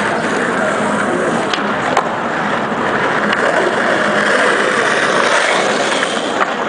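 Skateboard wheels rolling over pavement in a steady rough rumble, with a few sharp clacks of the board scattered through it.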